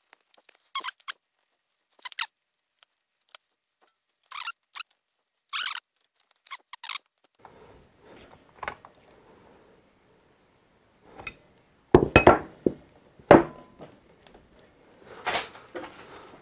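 A wrench turning the nuts on the end of a shaper table's lead screw gives short, high-pitched metal squeaks over the first several seconds. About twelve seconds in come a few loud clanks as steel wrenches are set down on the bench.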